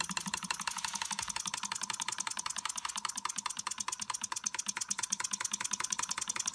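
Small model steam engine running on compressed air, its exhaust chuffing in a rapid, even run of short puffs and clicks.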